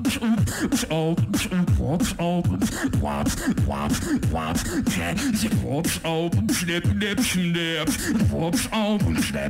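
Live beatbox routine through a stage microphone: fast, regular kick and snare sounds over a held bass hum, with wavering sung vocal lines layered on top.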